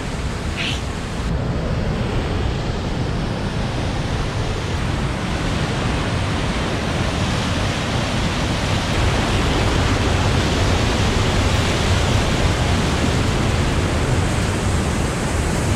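A mountain river rushing and splashing down small waterfalls through a rocky channel: a steady rush of whitewater, a little louder in the second half.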